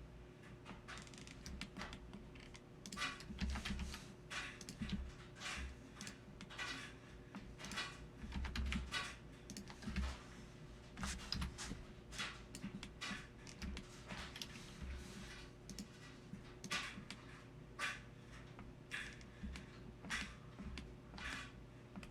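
Computer keyboard keys clicking in irregular runs, over a faint steady hum.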